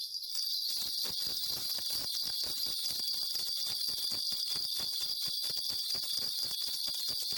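A cluster of shaman's ritual bells shaken continuously, a steady high jingling made of many quick, irregular strikes, as the shaman consults the spirits for an answer.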